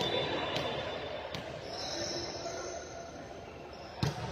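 Low hall ambience in a large gym with a few light knocks, then one sharp smack about four seconds in: a volleyball being struck, most likely the serve that starts the rally.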